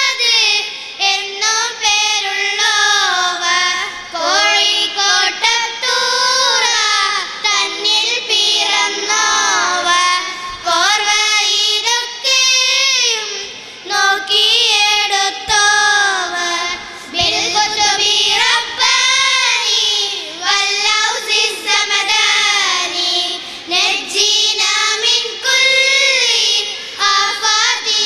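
A small group of girls singing a song together through handheld microphones, their melody held in long, gliding and wavering notes.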